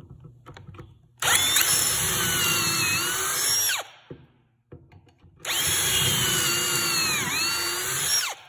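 Ridgid cordless drill at full speed boring two pocket holes in a wooden board through a Kreg pocket-hole jig: two runs of a high whine, about two and a half and three seconds long, with a short pause between. The pitch dips briefly late in the second run.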